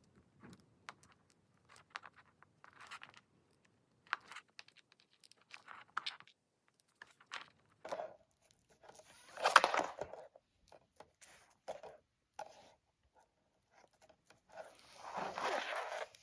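Braided nylon loom sleeve rustling and scraping as it is pushed and worked along a Lightning cable by hand: scattered soft crinkles and clicks, with two longer, louder rustles, one about ten seconds in and one near the end.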